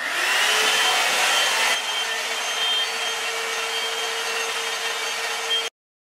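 Knock-off Revlon One-Step-style hot-air brush running on its high setting: a steady rush of blowing air with a motor whine. It cuts off abruptly near the end.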